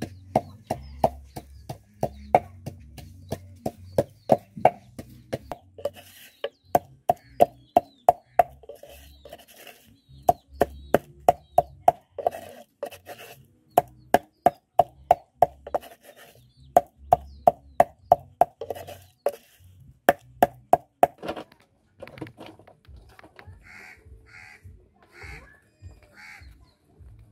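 Garlic being crushed with salt under a pestle in a mortar: rapid, regular knocks, about three or four a second, in runs of a few seconds with short pauses, stopping about 21 seconds in.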